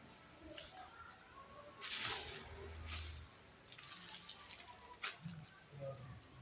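Goods and their packaging being handled: several short rustles and two sharp clicks.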